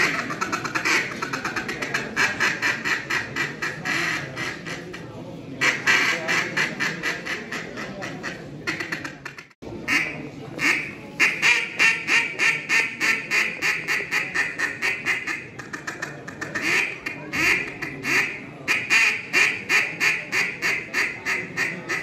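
Hand-blown mallard duck call sounded in runs of rapid short quacks. A sudden break about nine and a half seconds in, then more runs of fast quacking.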